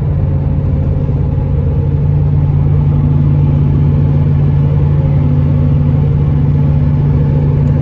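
Steady engine and road drone inside a vehicle's cabin at highway speed: a constant low hum that holds an even pitch.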